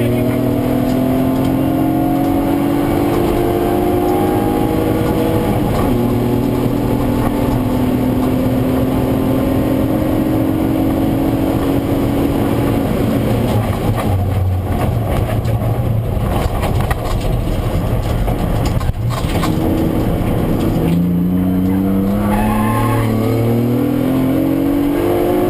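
BMW E36 323ti's straight-six engine heard from inside the cabin, accelerating hard: its pitch climbs, drops at an upshift about six seconds in and climbs again. Past the middle the engine falls back to low, steady revs under tyre and road noise for several seconds, then it accelerates hard again near the end.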